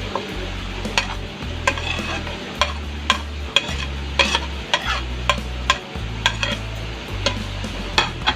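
A spoon stirring boiling chicken soup in a pot, clicking against the pot about once or twice a second over a bubbling haze and a low rumble.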